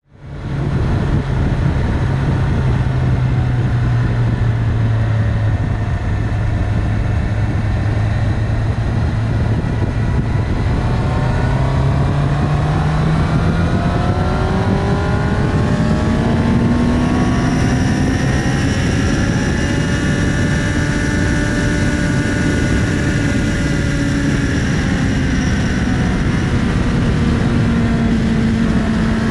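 2019 Honda CB650R's inline-four engine through an Akrapovic Racing Line titanium exhaust, heard from on board while riding: it fades in, runs steadily at lower revs, then rises in pitch about halfway through as the bike accelerates and holds at higher revs. A steady rush of wind and road noise runs underneath.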